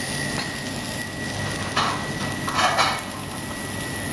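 Steady kitchen background hiss with a thin high whine, and two brief scraping clatters about two and three seconds in as a white ceramic serving plate is handled.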